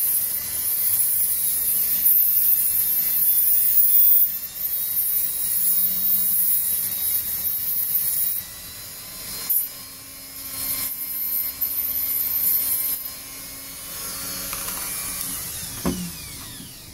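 A small electric rotary tool grinding into a metal wire loop with a high, hissing whine that comes and goes in stretches. Near the end the motor is switched off and winds down in a falling whine, and there is a thump as the tool is set down.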